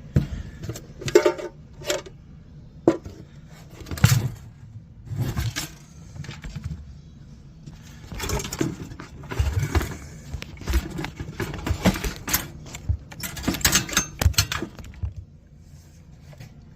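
Small metal hardware and hand tools being handled: irregular clinks, rattles and short scrapes, with a few sharper knocks.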